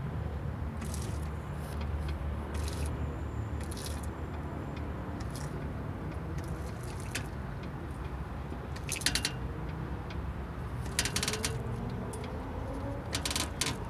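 Car suspension squeaking: a series of short, high squeaks about once a second, louder in the second half, over a low steady hum.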